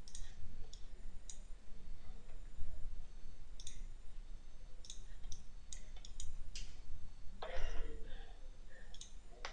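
Computer mouse clicking, about ten separate clicks at irregular intervals, over a low steady hum.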